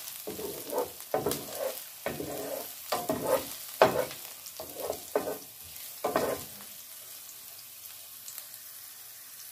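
Wooden spatula stirring diced bell pepper and onion sautéing in hot oil in a non-stick fry pan: scraping strokes about twice a second over a light sizzle. The stirring stops about six and a half seconds in, leaving just the steady sizzle.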